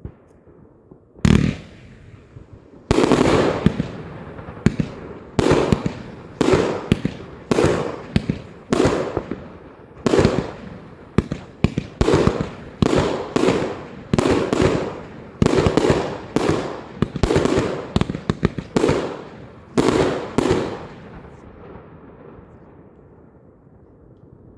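Klasek F2/F3 firework batteries firing in sequence. A single bang comes just over a second in, then about three seconds in a steady run of shot bursts follows, roughly three every two seconds, each trailing off in crackle and echo. The volley stops about three-quarters of the way through and dies away.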